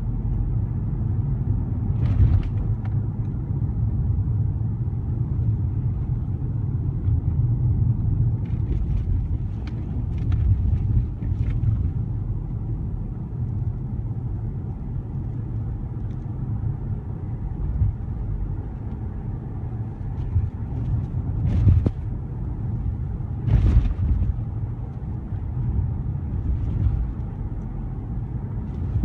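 Car driving, heard from inside the cabin with the windows closed: a steady low road and engine rumble, with a few short knocks from the ride, the loudest two about two-thirds of the way through.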